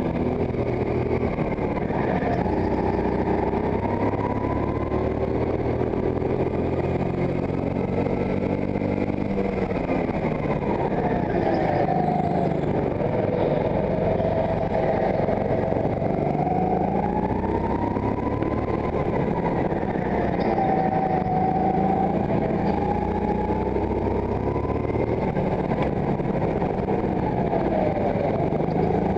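Racing go-kart's motor heard onboard, its pitch rising as it accelerates out of corners and falling as it slows into them, over and over through a lap.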